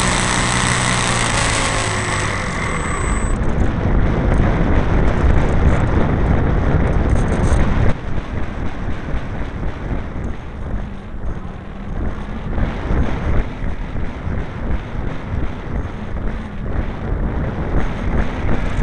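The engine of a radio-controlled Piper model plane runs with a steady note for about two seconds, then the note drops away, leaving wind rushing over the onboard camera's microphone as the model flies on. The wind noise grows louder and then gusts unevenly.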